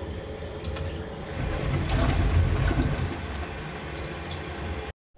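Tap water rushing through a wort chiller's hoses while a small wort pump hums, chilling the wort at the end of the boil. The flow grows louder about a second and a half in, then the sound cuts off suddenly near the end.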